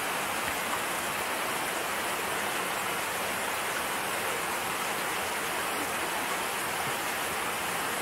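Flowing water rushing steadily, an even hiss with no breaks.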